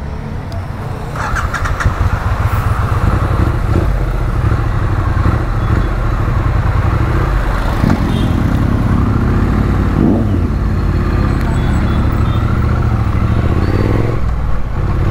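Triumph Street Twin's 900 cc parallel-twin engine pulling away and accelerating. It gets louder over the first couple of seconds, then runs steadily, with its note rising and dropping as the bike picks up speed through the gears.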